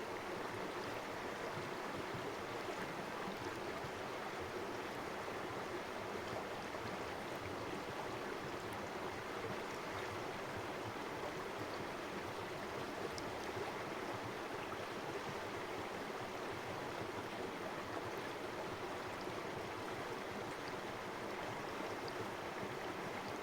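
River water running steadily over stones, an even rushing with fine splashes and trickles.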